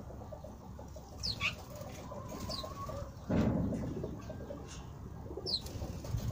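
A few short, high chirps, each falling in pitch and spaced a second or more apart, from a common quail. About three seconds in there is a brief, louder low rush of noise.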